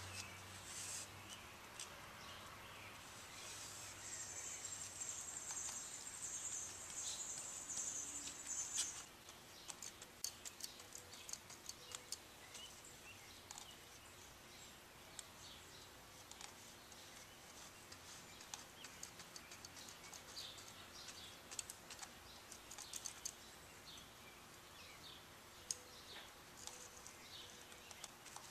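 Faint scratching and tapping of a small brush working resin into fiberglass cloth laid over a foam form, soft irregular ticks that go on through most of the clip. For about five seconds near the start a high, thin trill sounds in the background and stops abruptly.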